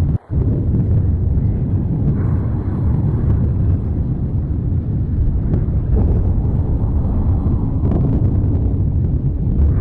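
Eruption of Mount Etna's Voragine crater: a continuous deep rumble with a few sharper blasts, about 6 and 8 seconds in. The sound drops out for a moment just after the start.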